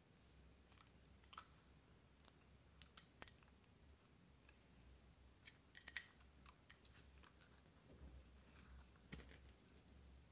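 Faint, scattered scratchy clicks and rasps of a pin grooming brush working through a cat's fur and against its paws, with sharper clicks about a second and a half in and again around six seconds in.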